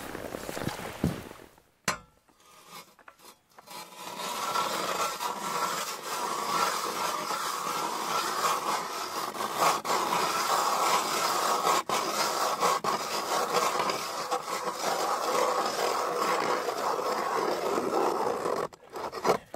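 Ice auger boring a hole through lake ice, its blades grinding and scraping steadily. The scraping starts a few seconds in and stops shortly before the end.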